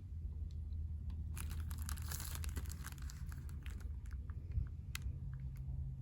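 A brief crinkling rustle, lasting about a second and a half, followed by a few scattered light clicks and taps.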